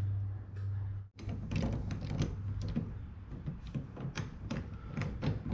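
Rapid light clicks and taps of a metal PDR mini dent lifter being set down on a car hood over a glued pulling tab and adjusted, starting about a second in, over a low steady hum.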